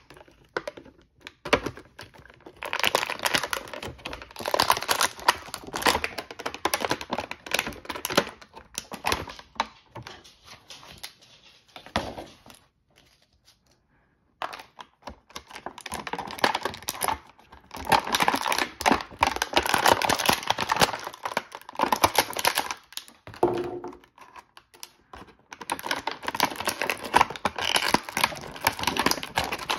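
Thin clear plastic toy bags crinkling in a dense, crackly way as hands handle and pull them open. There is a pause of about two seconds partway through.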